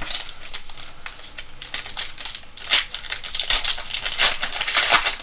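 Foil trading-card pack wrapper crinkling and crackling as it is torn open by hand. The crackling comes as an irregular run, with louder bursts about halfway through and again near the end.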